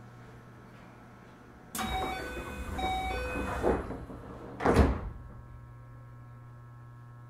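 Sliding passenger doors of a Keio 8000 series train working: a sudden rush of noise with a few short chime-like tones starts about two seconds in and ends in a heavy thud a little under five seconds in as the doors reach the end of their travel. A steady low electrical hum runs underneath.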